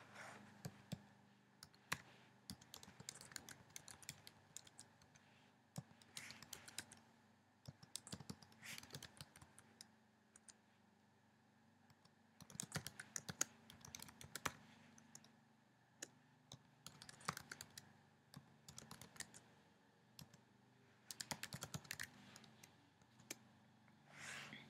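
Faint typing on a computer keyboard, in irregular bursts of quick key clicks separated by pauses of a second or more.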